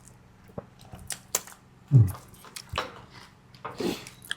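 A person eating: chewing and smacking with scattered small clicks, like a utensil against a plate, and a couple of short murmurs about halfway through and near the end.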